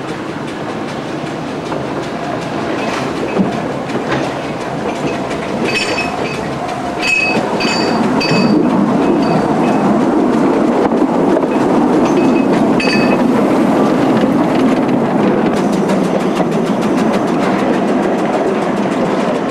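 Narrow-gauge 0-6-2 well tank steam locomotive running slowly round its train on the loop. Its running noise grows louder from about seven seconds in as it comes close. Short, high-pitched squeals come and go between about six and thirteen seconds in.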